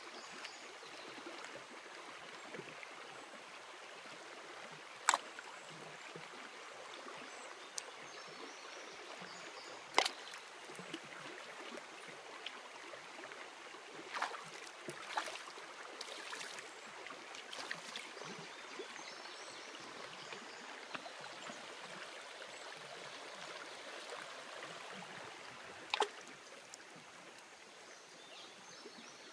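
Shallow creek running steadily over gravel, with a few short sharp splashes scattered through as a small child wading in it handles and drops rocks into the water.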